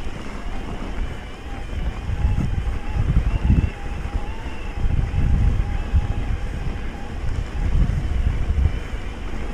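Wind buffeting the microphone of a camera carried on a moving mountain bike, a low rumble that swells and drops in gusts every second or so. A faint wavering whine sits under it through the middle.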